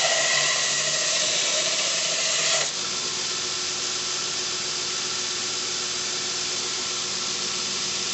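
Homemade 2x42 belt sander running on skateboard-wheel pulleys, grinding a steel blade against the belt with a steady hiss. About two and a half seconds in the grinding stops abruptly as the work is lifted off, and the belt runs on freely with a steady hum.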